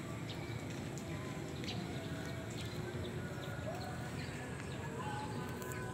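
Outdoor ambience: a steady low rumble with short, high bird chirps scattered through it.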